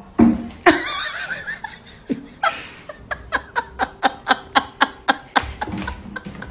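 A person laughing hard: a loud outburst about a second in, then a run of short, rhythmic ha-ha sounds, about four a second, that stops near the end.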